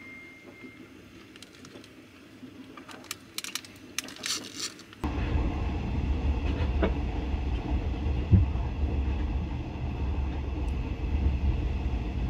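Sleeper train running along the track: after a quiet start with a few faint clicks, a loud steady low rumble of the train cuts in abruptly about five seconds in, with one sharper knock a few seconds later.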